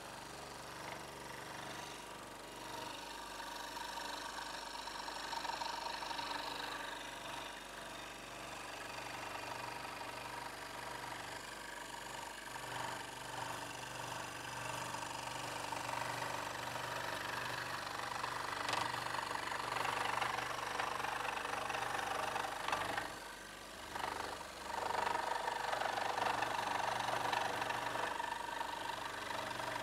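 Benchtop scroll saw running and cutting through a wooden board: a steady motor hum with the fast chatter of the reciprocating blade. About three-quarters of the way through, the sound dips for a moment and then comes back.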